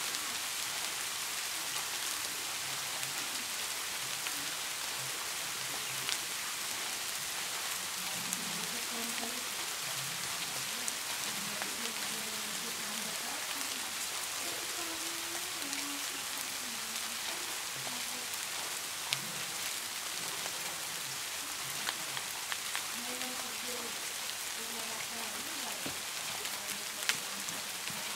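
Steady rain-like hiss, with faint muffled voices in the background and a few light clicks.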